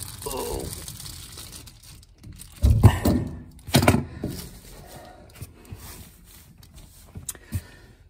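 Tool handling while a brass ball valve is tightened onto a water tank outlet: rustling and scraping, with two heavy thunks about three and four seconds in, like spanners or pliers knocking on the wooden floor.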